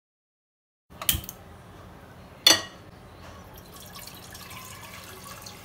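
Two sharp clinks of cookware on the stove, the second the louder, then a steady trickle of water being poured into a cooking pot.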